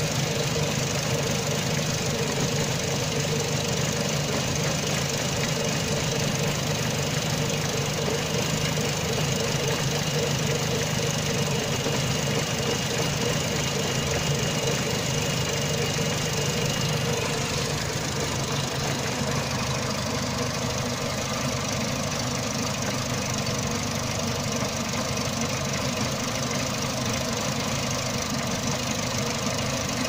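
Renault Megane Mk1 16-valve four-cylinder petrol engine idling hot with a very rough idle, the engine shaking. There are no fault codes, and the short-term fuel trim sits far negative, around −50 to −80%.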